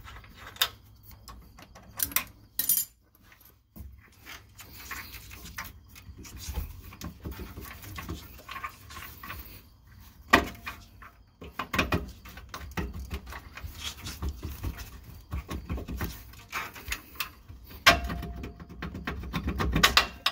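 A 21 mm wrench working the bottom mounting nut of a rear shock absorber: irregular metal clicks and clinks of the tool on the nut and bolt, in busy clusters about halfway through and again near the end.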